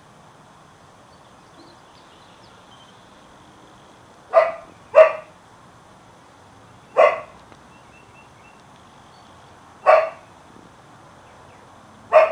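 A dog barking five single short barks: the first two close together about four seconds in, then about every two to three seconds.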